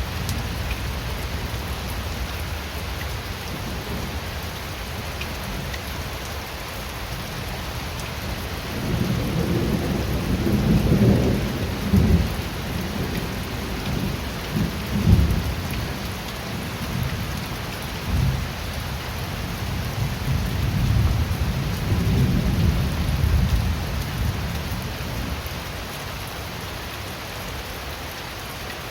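Steady rain falling, with thunder rolling low from about nine seconds in. The thunder swells in several stronger peaks and dies away a few seconds before the end.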